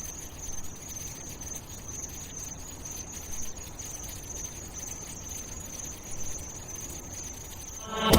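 Steady high-pitched chirring of crickets over a low ambient rumble. Music comes in loudly just before the end.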